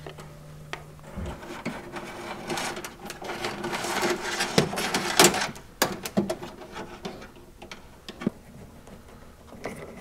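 A thin wire being fed and pulled by hand through the bare inner sheet-metal panel of a car door: irregular rustling and scraping of the wire and wiring harness against the metal, with scattered clicks. It is busiest in the middle and thins out toward the end. A low hum stops about a second in.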